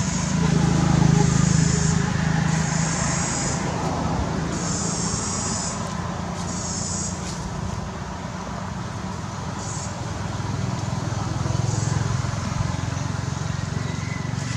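Outdoor ambience of a steady low motor-traffic rumble that swells about a second in and again near the end. Short high buzzing pulses, each about a second long, repeat every couple of seconds over it.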